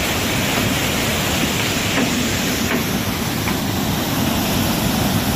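Muddy floodwater rushing down a river channel in spate: a steady, loud rush of water.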